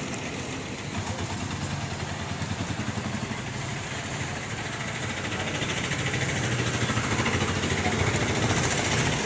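Street traffic: the engines of autorickshaws, cars and motor scooters running and passing close by, a steady hum with a low rumble that grows louder over the last few seconds.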